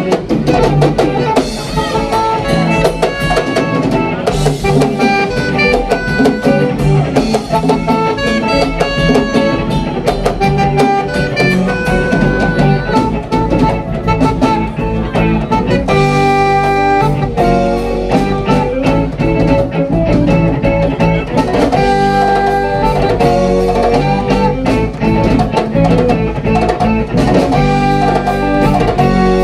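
Live band music: guitars playing over drum kit and hand drums in a steady groove.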